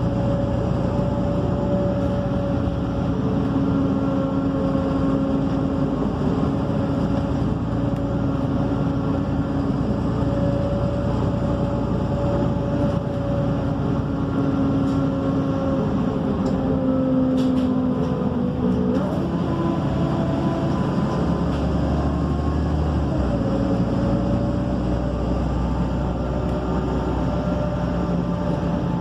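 MAN Lion's City city bus heard from inside, its diesel engine and drivetrain running under way with a steady hum and whine. The pitch sinks slowly, then jumps up suddenly about two-thirds of the way through, like a gear change, and a deeper rumble joins in soon after.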